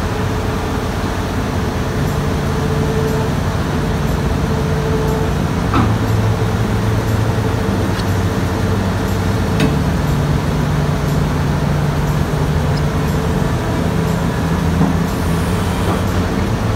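Diesel engine of an SDLG E6138F crawler excavator running steadily at low revs, its pitch shifting slightly. A few faint metallic clinks sound over it.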